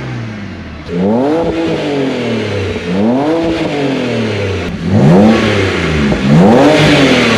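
BMW E92 325i's straight-six engine revved through a newly fitted custom cat-back exhaust: four throttle blips in a row, each rising in pitch and falling back toward idle.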